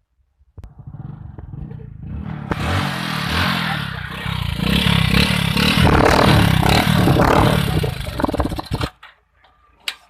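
Motorcycle engine running in its unmodified state, growing louder over the first few seconds and cutting off abruptly about nine seconds in.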